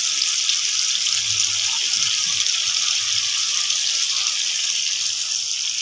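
Water being poured from a glass into a pot of hot fried tomato masala, a steady hissing pour.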